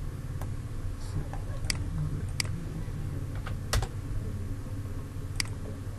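About half a dozen scattered, irregularly spaced clicks from a computer mouse and keyboard as commands are given in the drawing program, over a steady low hum.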